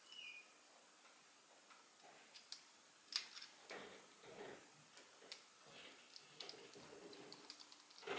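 Faint scattered clicks and small ticks as a T6 Torx driver works the handle screws of a Custom Knife Factory S.S.E. pocket knife, with one sharper click about three seconds in.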